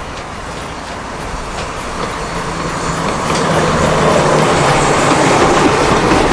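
Train sound effect: a rumbling, clattering passing train that grows louder and then cuts off abruptly.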